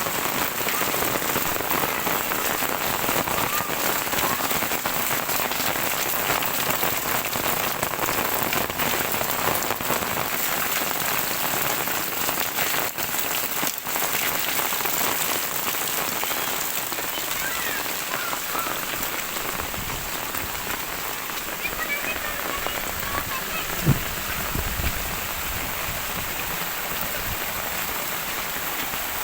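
Heavy rain falling steadily in a dense, even hiss. Late on there is a single low thump.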